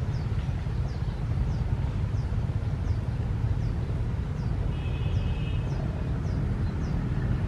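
Outdoor swamp ambience: a steady low rumble, with a short, falling high chirp repeating about every two-thirds of a second and a brief buzzy note about five seconds in.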